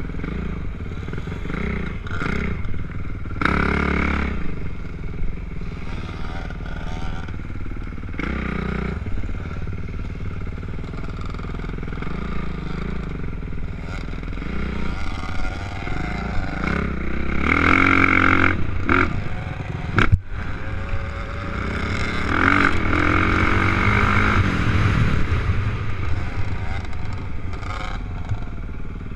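Dirt bike engine revving up and down as it is ridden round a motocross track, heard from the rider's helmet, with several strong rises in revs. A single sharp knock about twenty seconds in.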